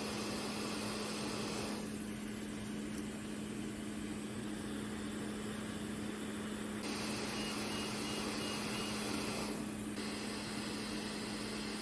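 Steady background hum with a constant low tone and even hiss, with no distinct events.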